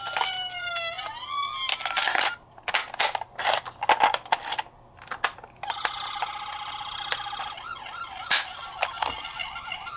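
Toy emergency vehicles' electronic siren: a wailing siren glides up and down, with more than one siren overlapping, for about two seconds. It gives way to a run of sharp plastic clicks and clacks, then from about halfway a steady, slightly warbling electronic siren tone.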